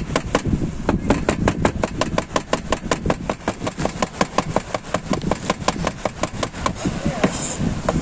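Cleaver blade chopping rapidly on a wooden cutting board, mincing garlic: an even run of sharp knocks, about six a second.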